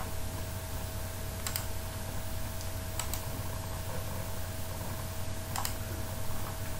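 Three separate sharp clicks at a computer, about a second and a half apart at first and then a longer gap, over a steady low hum and a faint steady tone.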